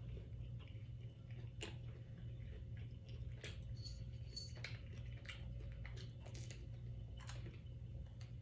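Close-miked chewing of a mouthful of food, with irregular wet smacks and clicks from the mouth, over a steady low hum.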